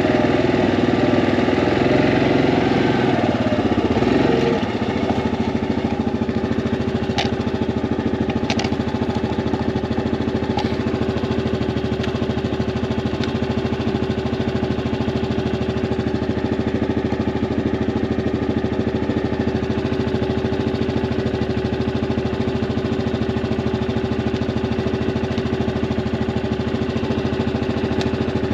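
Yamaha Grizzly ATV's single-cylinder engine running; its note is busier and louder for the first four seconds or so, then drops a little and runs steady, with a few brief clicks along the way.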